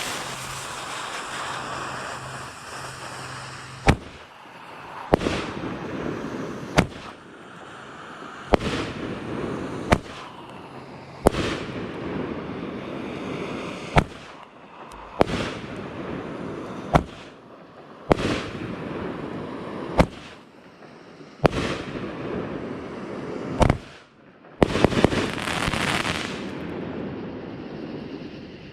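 A 200 g consumer firework cake with 1.25-inch tubes firing its nine aerial shells one after another: sharp reports every one to two seconds, with a crackling, hissing wash of breaks between them and a rapid cluster of reports near the end.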